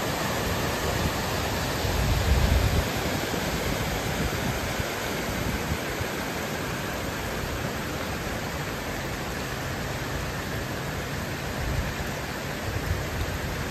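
Muddy floodwater from heavy rain rushing fast along a washed-out garden path, a steady full rush of water. A brief low rumble comes about two seconds in and again near the end.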